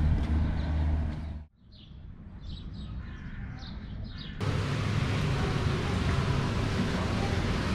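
BMW X5 cabin noise, the steady low rumble of the car driving, cut off about a second and a half in. A few short bird chirps follow against quiet. About four seconds in, a steady rushing noise starts abruptly.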